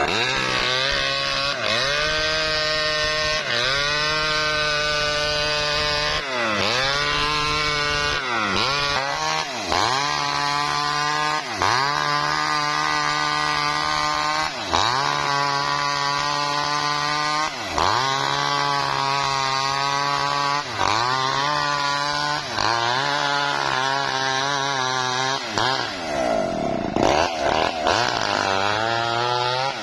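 Maestro mini two-stroke chainsaw running at full throttle, ripping lengthwise through a lamtoro (leucaena) log. Its engine pitch sags and climbs back every two to three seconds as the chain bites into the wood under load.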